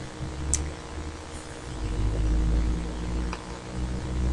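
A steady low hum, with two faint clicks: one about half a second in and one just after three seconds.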